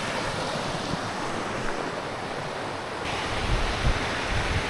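Steady rush of a jungle stream and waterfall. About three seconds in the sound changes abruptly and low wind buffeting on the microphone joins the water.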